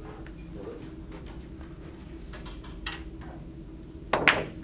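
Billiard balls clacking together: a sharp double click about four seconds in, with fainter ticks before it.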